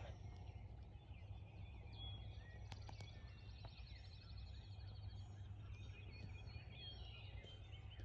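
A wild turkey tom gobbling faintly, with songbirds chirping over a steady low rumble.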